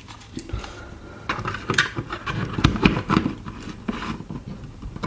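Small plastic clicks, knocks and scraping as a model diesel locomotive's DCC chip and wiring are pressed and worked into place on its chassis.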